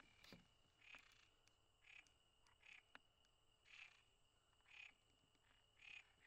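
Faint night ambience: a frog giving short croaking calls about once a second, over a steady high insect trill.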